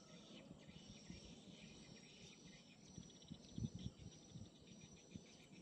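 Faint insect chirping, a fast pulsing buzz from crickets, with a few low thumps around the middle.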